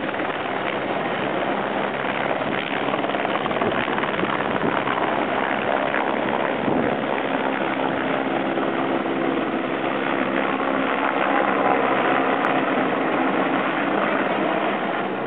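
Helicopter lifting off from snow and climbing away, its turbine and rotor giving a loud, steady noise, with a steady hum that comes in about halfway through.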